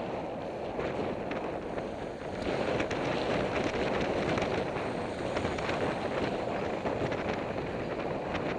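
Wind rushing over the microphone of a camera on a moving bicycle, growing louder a couple of seconds in, with frequent small clicks and rattles from road vibration.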